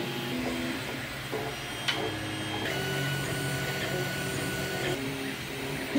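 FDM 3D printer printing: its stepper motors whine in short tones that keep jumping in pitch as the print head moves, with a single click about two seconds in.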